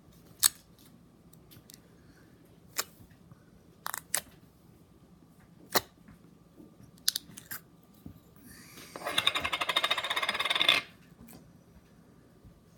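Slime being handled: scattered sharp pops and clicks, then about two seconds of dense, rapid crackling a little past the middle, the loudest part, like air bubbles popping as the slime is squeezed.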